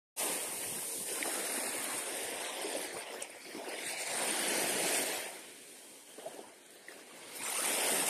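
Surf of big sea waves breaking and washing up a sandy beach. It cuts in abruptly just after the start and swells louder twice, about halfway through and near the end, as waves break.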